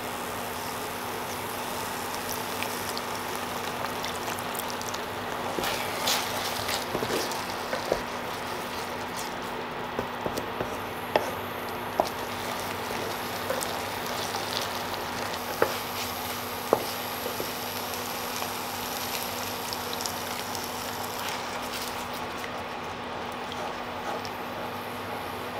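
Kimchi risotto simmering and sizzling in a nonstick frying pan, with a wooden spatula stirring and tapping against the pan. Scattered small pops and clicks sit over a steady hiss.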